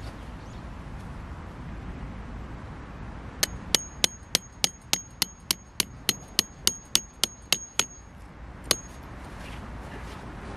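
A tent peg being hammered into the ground: about fifteen quick, even strikes, roughly three a second, each with a high metallic ring, then one last blow after a short pause.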